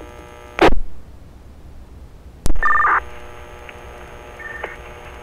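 Fire-department two-way radio channel between transmissions: a burst of static about half a second in, a sharp key-up click midway, then a short beep of two tones sounding together, over steady radio hiss. A fainter short beep follows near the end.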